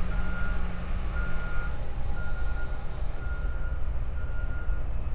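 A vehicle's reversing alarm beeping about once a second, each beep a single steady tone, over a steady low engine rumble.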